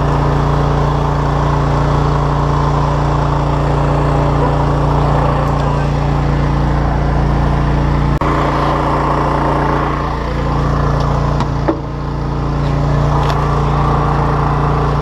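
Electrofishing boat's motors running at a steady drone, holding an even pitch as the boat idles along. A couple of brief knocks come about 8 and 12 seconds in.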